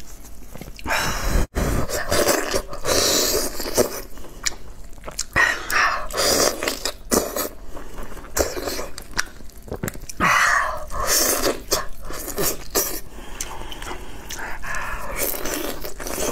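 Close-miked eating sounds of someone biting and chewing soft, saucy lamb rib meat: irregular wet mouth noises and clicks.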